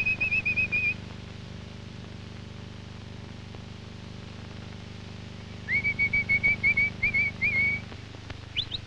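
Sheepdog handler whistling commands to a working dog. A short warbling whistle at the start, then a longer one of many quick pulses a few seconds later, and two brief rising whistles near the end, over a steady low hum.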